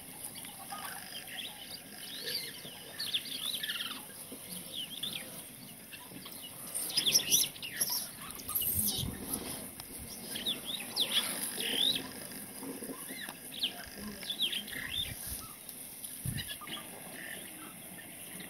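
Outdoor bush ambience: birds chirping and calling in many short notes that rise and fall, over a steady high hiss. There is a louder cluster of knocks and rustles about seven seconds in.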